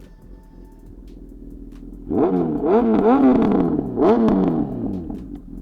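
Honda CB1000R inline-four idling through an aftermarket Black Widow header and LeoVince carbon slip-on exhaust, then revved hard in several quick throttle blips starting about two seconds in, each rising and falling back. The blips are loud enough to read 119 decibels.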